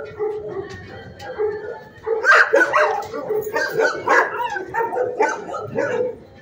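Several dogs barking and yipping in a shelter kennel, the barks overlapping. The barking is lighter at first and grows louder and denser from about two seconds in.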